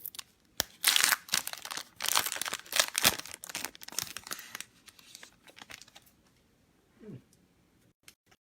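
A trading-card pack wrapper being torn open and crinkled, loudest for the first four seconds or so, then fading to light rustles and small ticks.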